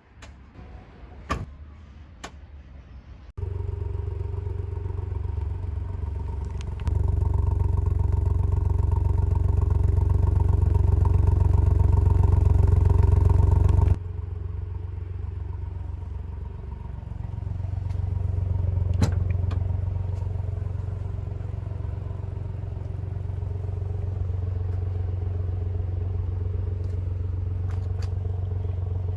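Ford Puma ST's 1.5-litre turbocharged three-cylinder petrol engine running steadily at a constant engine speed, after a few clicks at the start. The engine sound begins suddenly about three seconds in, is louder for a stretch in the middle, and swells briefly later on without a change in pitch.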